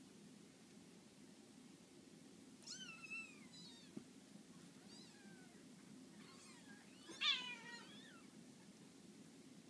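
Newborn Scottish Fold kittens mewing: a few thin, high-pitched squeaks that fall in pitch, the loudest cluster about seven seconds in, as the mother cat settles in among them.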